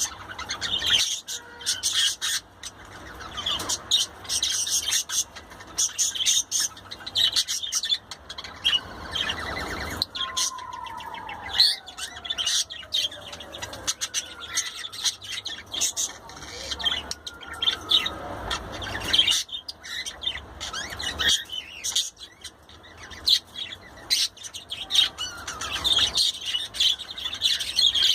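Budgerigar chattering and warbling: a steady stream of quick, high chirps and squawks.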